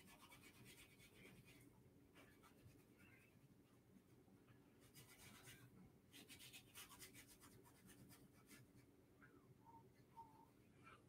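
Faint scratchy strokes of a thin paintbrush dragging acrylic paint across canvas, in several short runs, over a low steady hum.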